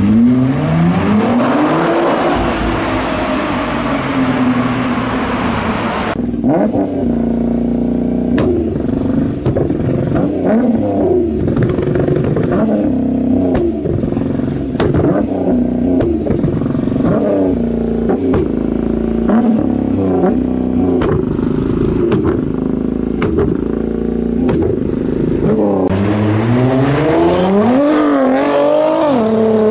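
Nissan GT-R engine revving up and down again and again, with sharp exhaust pops and crackles on the overrun between revs. It pulls harder with a loud rush for the first few seconds and again near the end.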